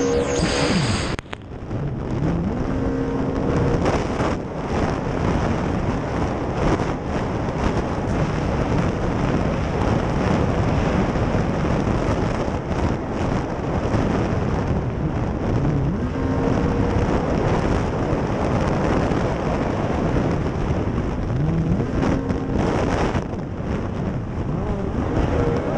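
Racing jet ski running hard across choppy water: dense engine, wind and water rush from an onboard camera, with wind buffeting the microphone. The engine note climbs briefly a few times as the throttle is worked through the course.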